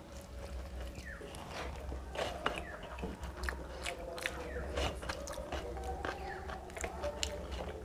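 Close-up wet chewing with many short mouth clicks and smacks while eating rice and fish curry, along with soft squelches of rice and curry being mixed by hand on a metal plate.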